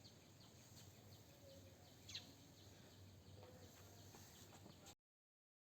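Faint bird chirps repeating about three times a second over a low outdoor background, with one louder call about two seconds in; the sound cuts off abruptly near the end.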